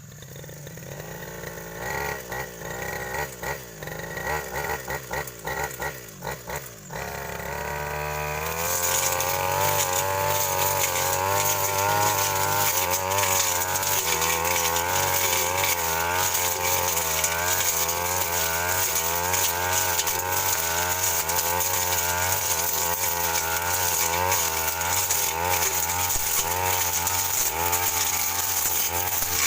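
Two-stroke engine of a Stihl FR 3001 brush cutter blipped in short throttle bursts for the first several seconds, then revving up about eight seconds in and running at high speed, its pitch wavering as the blade cuts through scrub and saplings.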